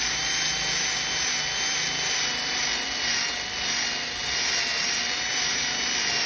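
Small power sander running steadily, a high whine over a hiss, sanding drip marks out of fresh clear coat with fine-grit paper.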